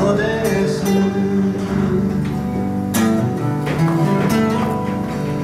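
Unamplified acoustic guitars playing an instrumental passage of a folk song, with chords strummed under picked melody notes.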